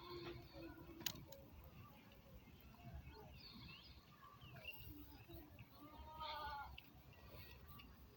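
Faint goat bleats, likely Black Bengal goats, with one clearer, longer bleat about six seconds in and a sharp click about a second in.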